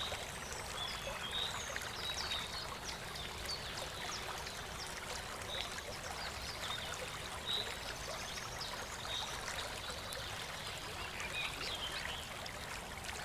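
Stream water flowing steadily, with short high chirps scattered throughout.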